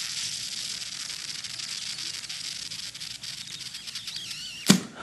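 Small double-acting slide-valve model mill engine running on mouth (lung) pressure: a steady hiss of breath escaping through the engine, with fast fine ticking as it turns. A sudden loud puff near the end as the blowing gives out.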